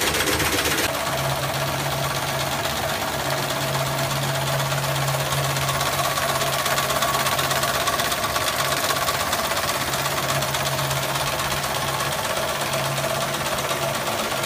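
Firecracker production machinery running: fast, steady mechanical clatter over a motor hum and a steady whine. A harsher, brighter clatter at the start gives way about a second in to the steadier running.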